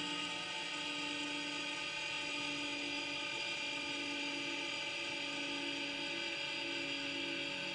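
Steady mechanical hum with several unchanging tones inside the cockpit of a parked Aero Commander 520 twin, holding level throughout.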